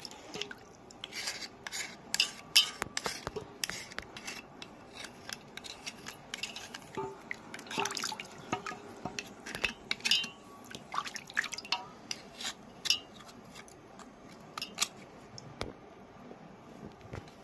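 Small knife blade scraping and chipping at a soft stone held over a steel basin of water: irregular sharp scrapes and clicks, with water dripping and splashing. The blade is taking off the stone's gritty outer crust.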